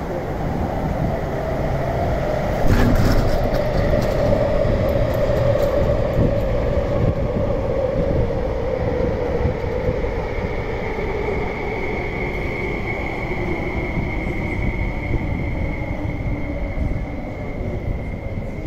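MTR West Rail Line SP1900 (IKK) electric train pulling into the platform. The wheels rumble on the rails under a motor whine that falls slowly in pitch as the train slows. About halfway through, a steady high-pitched whine joins in.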